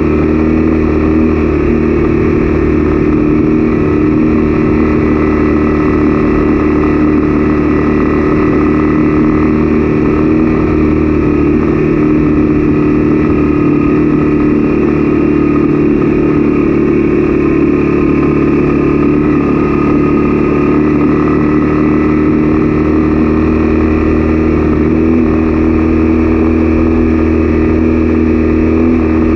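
Honda CB300F's single-cylinder engine running at a steady cruising speed, its pitch holding nearly constant.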